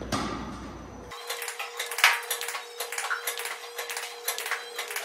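Sharp knocks of a tennis racket hitting balls and balls bouncing on the court floor, irregular, with the loudest knock about two seconds in. From about a second in, a faint steady hum lies under the knocks.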